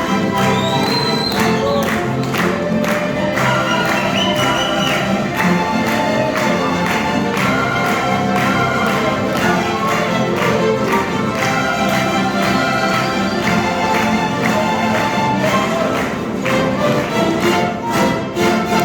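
Live ensemble music, led by strings, playing a lively tune with sharp, regular rhythmic accents.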